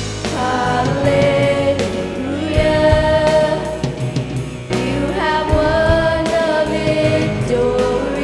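Contemporary worship music: singers hold long notes over a band with a steady drum beat.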